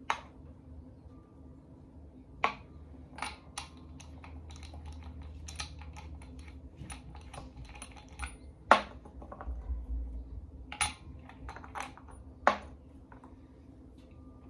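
Metal tools and small engine parts clicking and clinking against each other as they are handled during engine disassembly, about eight sharp, irregular knocks.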